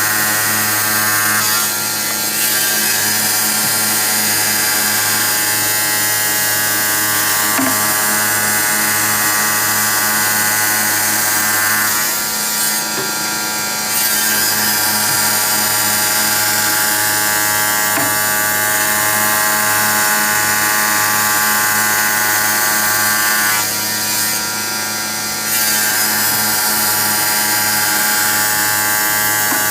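Electric tile cutting machine running, its motor giving a steady whine of many stacked pitches. The level dips briefly three times, about 2, 13 and 25 seconds in, each dip with a short hiss.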